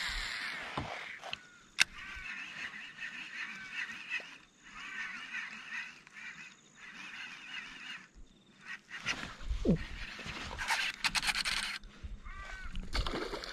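Waterfowl calling, with long runs of short repeated calls. A sharp click comes about two seconds in, and louder knocks and rustling come near the end.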